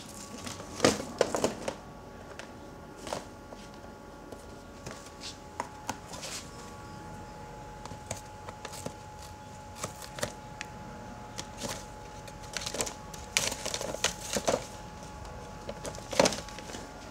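Sulphur-crested cockatoo biting and tearing at a cardboard seed box: irregular snaps, short rips of cardboard and taps of the box against wooden decking, busiest about a second in and again near the end.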